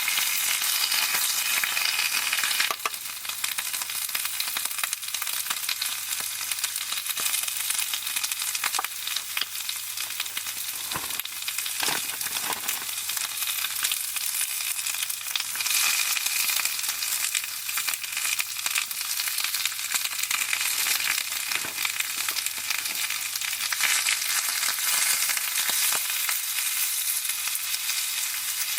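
Food sizzling as it fries, a steady crackling hiss with a few sharp clicks around the middle.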